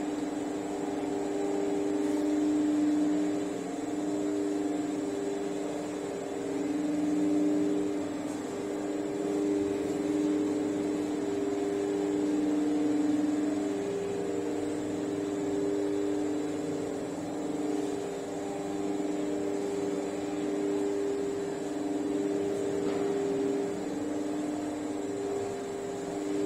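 Steady mechanical hum of two held low tones that slowly swell and fade, with a faint steady high whine above them.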